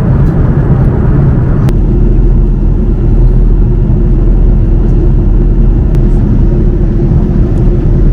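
Steady, loud cabin rumble of an Airbus A330-300 airliner in flight on approach. Just under two seconds in, a click is followed by an abrupt change to a deeper rumble with a steady hum underneath.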